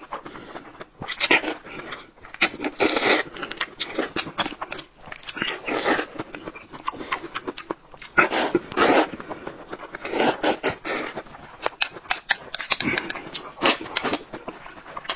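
A man loudly slurping noodles: repeated wet sucking slurps every second or two, with chewing and lip-smacking between them.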